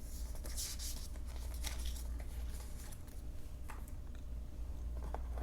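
Faint rustling and light handling sounds from unboxing, as items and packaging are taken out of a laptop box, over a steady low hum.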